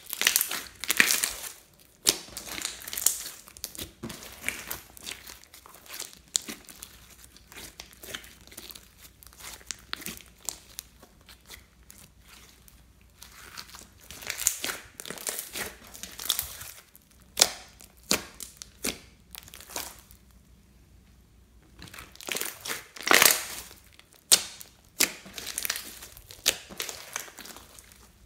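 Glittery clear slime being kneaded, pressed and stretched by hand: irregular bursts of sticky crackling and sharp popping clicks as trapped air squeezes out of the slime, in clusters with quieter moments between.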